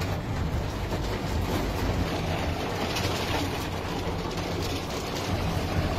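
Heavy hail pelting down: a dense, steady clatter of many small impacts over a deep rumble.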